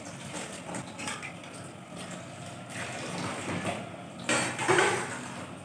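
Tap water running into a stainless-steel sink while dishes are washed by hand, with steel dishes and a pot lid clattering, loudest a little past four seconds in.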